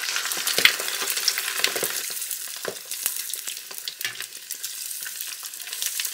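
Pork hock deep-frying in hot oil: a steady sizzle with frequent sharp crackling pops.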